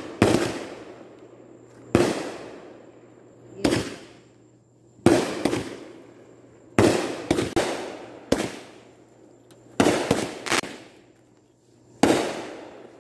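Aerial fireworks bursting overhead: a sharp bang every second or two, sometimes two or three in quick succession, each trailing off in a fading rumble.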